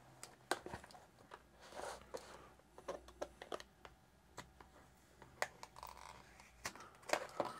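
A small pocketknife blade cutting and scraping along the edge of a stiff plastic blister pack: faint, irregular plastic crackles, scrapes and clicks.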